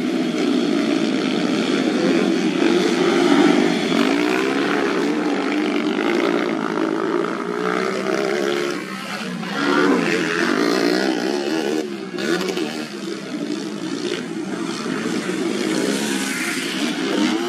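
Several dirt-bike engines revving hard together, their pitches rising and falling continuously as the bikes accelerate and ease off through the corners.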